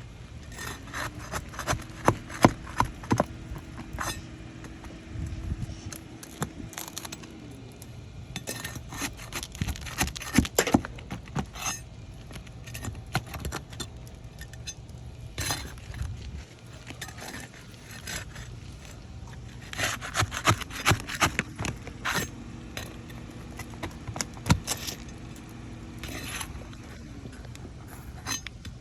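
Hand tools clicking, tapping and scraping against asphalt shingles and roofing nails as the shingles are worked loose. The sounds come in scattered clusters of sharp taps, with quieter stretches between them.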